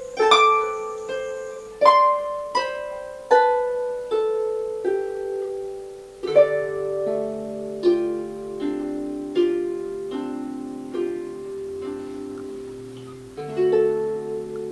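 Harps of the South lever harp played solo: a slow melody of single plucked notes, each ringing and fading, with lower bass notes joining about six seconds in and a chord struck near the end.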